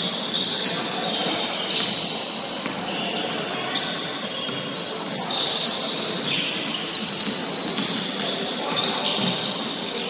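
Basketball being played on a hardwood gym floor: sneakers squeaking over and over as players run and cut, and the ball bouncing on the dribble.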